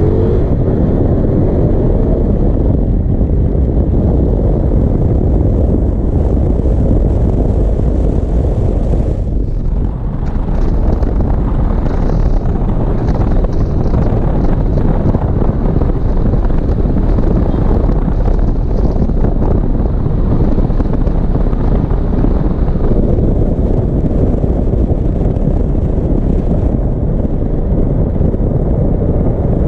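Loud, steady wind rumble on a GoPro Hero 5's microphone at riding speed, with no windproof cover fitted; it dips briefly about ten seconds in.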